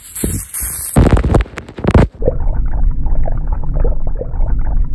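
Several hissing bursts from a hand spray bottle in the first two seconds, then a steady low rumble with faint small blips for the rest.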